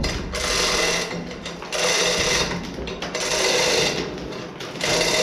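Hand-operated ratchet working stroke after stroke to pull the heavy steel blast valve along by chain, a fast clatter of pawl clicks in bursts about once a second.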